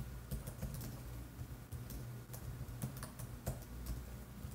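Typing on a computer keyboard: irregular, fairly soft keystrokes over a low steady hum.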